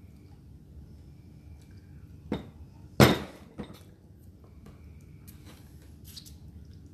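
Kitchenware knocked against a hard surface: a light tap, then one loud sharp clink with a short ring about three seconds in, and a smaller knock just after.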